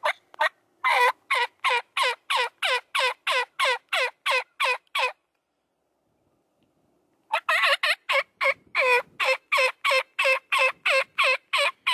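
Turkey yelping: a fast, even string of sharp notes, each dropping steeply in pitch, about four a second. The string stops dead about five seconds in and picks up again about two seconds later.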